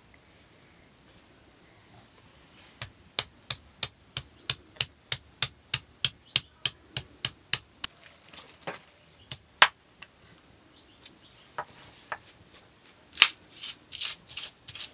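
Stone pestle pounding garlic and spices in a stone mortar: a steady run of sharp stone-on-stone knocks, about three a second, begins a few seconds in, then gives way to slower, irregular knocks and grinding near the end.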